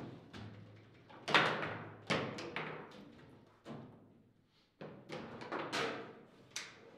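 Table football in play: the ball is struck hard by the plastic men and knocks off the table's walls, with rods clacking against the bumpers. There is a sharp, loud strike about a second in and a near-quiet pause in the middle before the knocking picks up again.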